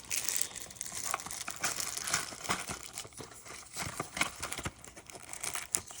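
Packaging crinkling and rustling in an irregular run of crackles and small clicks as boxed lock hardware and accessories are handled.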